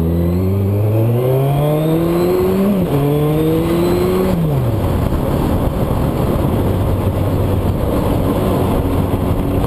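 Suzuki Bandit 1200S inline-four engine accelerating hard through the gears: its pitch climbs, drops at an upshift about three seconds in, climbs again, then falls away after about four and a half seconds. After that, steady wind rush on the microphone drowns out the engine running lightly underneath.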